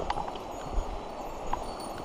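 Footsteps on a bar of rounded river cobbles, the stones clacking against each other at a walking pace, about once every three-quarters of a second, over the steady rush of a river.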